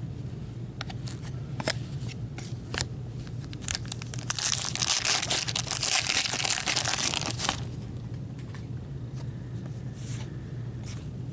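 A card pack wrapper being torn open by hand: a loud, crinkling tear lasting about three and a half seconds from around four seconds in. Before it come a few sharp clicks of cards being handled.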